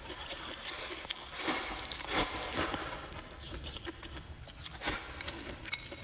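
A person slurping and chewing thick rice noodles, with four short, sharp slurps between about one and a half and five seconds in.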